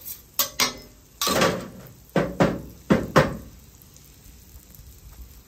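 Metal spatula scraping and clacking on a stainless steel flat-top griddle as it spreads melted butter: a few sharp clacks, a longer scrape about a second in, then more clacks before it dies away after about three and a half seconds.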